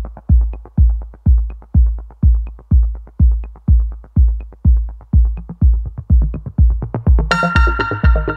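Electronic dance music with a heavy kick drum about twice a second; a synthesizer part comes in sharply about seven seconds in.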